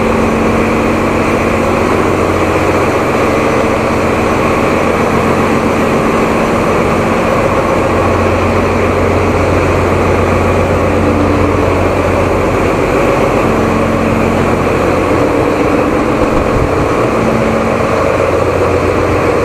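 Ship's engine-room machinery running: a loud, steady drone of engines and ventilation with a constant low hum, which grows a little stronger about halfway through.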